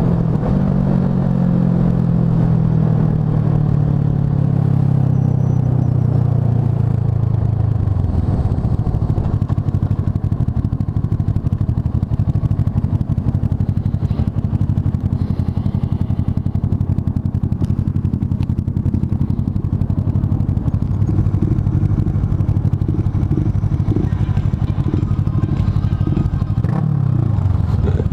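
Kawasaki ER-6n's parallel-twin engine, its pitch falling as the bike slows during the first few seconds, then idling unevenly. From about two-thirds of the way in, the throttle is blipped a few times, and the revs dip and rise again near the end.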